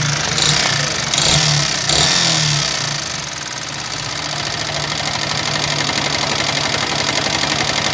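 Yamaha R15 V3's 155 cc single-cylinder engine running with a bad, harsh mechanical noise, surging a few times in the first three seconds and then running steadily. The mechanic puts it down to a worn cylinder block after 8000 km without an oil filter change.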